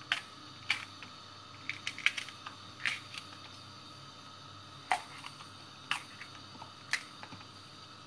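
Knife cutting through crisp green peppers (sivri and Çarliston) held in the hand, each cut a short crisp snap, irregularly about once a second, with the chopped pieces dropping into a plastic colander.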